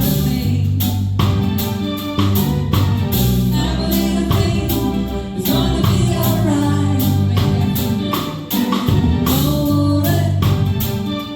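A band playing a reggae song live: a woman singing over bass guitar, keyboard and a drum kit keeping a steady beat.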